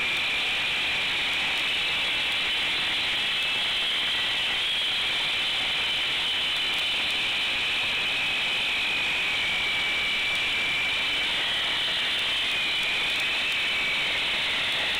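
Handheld concrete saw cutting through a concrete slab. It gives a steady high whine that wavers slightly in pitch as the blade bites into the concrete.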